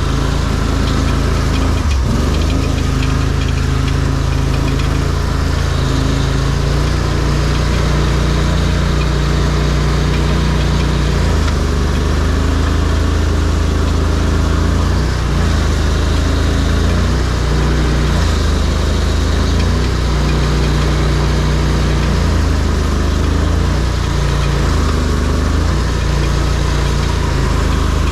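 ARGO amphibious off-road vehicle's engine running steadily, its pitch stepping up and down every few seconds as the throttle changes.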